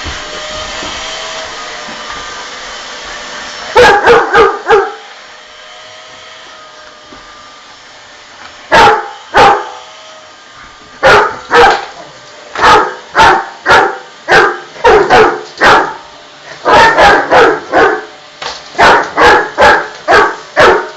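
A dog barking in repeated bursts of several loud barks over a running vacuum cleaner's steady whine; the vacuum drops in level about five seconds in.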